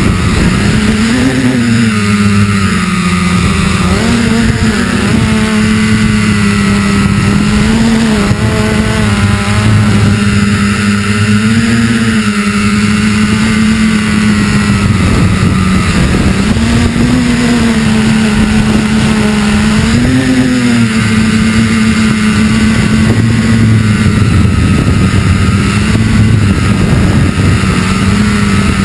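Multirotor drone's electric motors and propellers, recorded by its own onboard camera: a steady buzzing hum whose pitch lifts briefly several times as the throttle is pushed up and then settles again.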